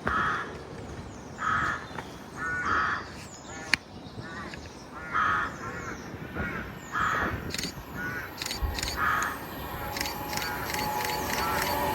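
A crow cawing about six times at irregular intervals, with smaller birds chirping in between. Near the end the rumble of an approaching train starts to build.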